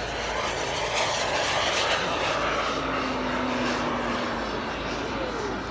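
Engine of a large radio-controlled scale model bomber flying past: a rushing engine noise that swells about a second or two in and then slowly eases.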